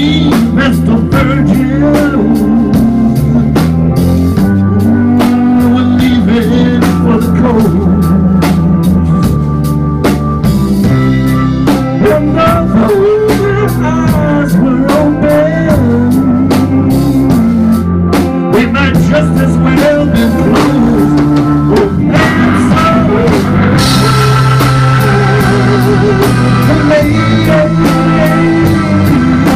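Live band playing: electric bass and drum kit under a lead line of bending notes, most likely electric guitar, loud and unbroken.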